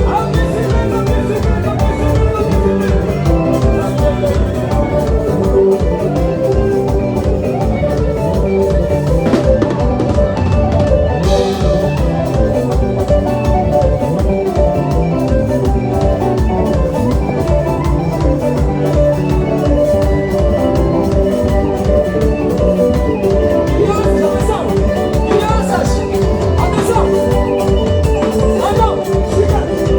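Band music with a steady drum-kit beat under pitched instruments, played for dancing.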